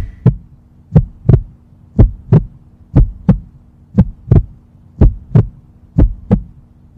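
Heartbeat sound effect: a double thump (lub-dub) about once a second, seven times, over a low steady hum.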